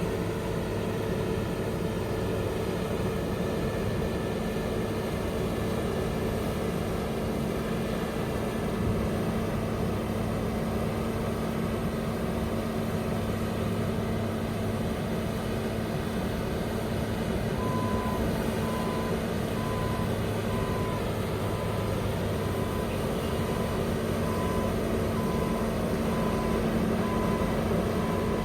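Heavy vehicle engine running steadily; about two-thirds of the way in, a reversing alarm starts beeping at an even pace, about once a second.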